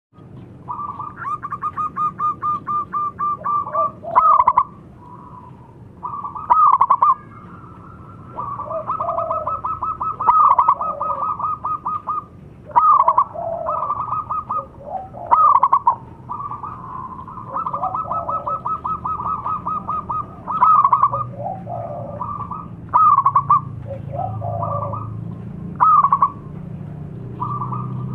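Zebra dove (perkutut) cooing loudly, phrase after phrase: each phrase is a quick run of rattling staccato notes that ends in a few louder, fuller coos.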